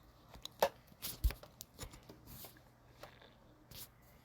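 A few scattered soft clicks and knocks at irregular intervals, the loudest a little over a second in.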